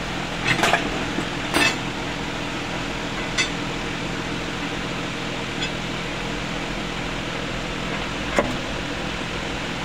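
Steady machine hum, with a few short, sharp metallic clinks as tools touch the exposed cylinder head and valve gear.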